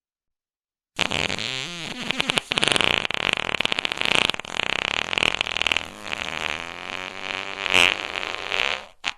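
Fart sound effect: one long fart of about eight seconds, starting about a second in, a rapid flutter whose pitch wavers up and down, followed by a short separate blip at the end.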